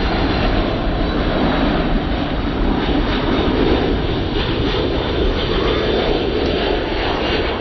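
Boeing 737-800's CFM56-7B turbofan engines at approach power as the jet flies low on final approach: a loud, steady jet rumble that swells slightly now and then.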